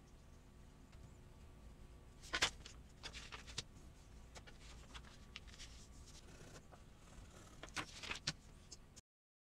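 A sheet of paper is handled on a wooden tabletop: soft rustles and light taps, the loudest about two and a half seconds in and a few more near the end, over a faint steady hum. The sound cuts off abruptly just before the end.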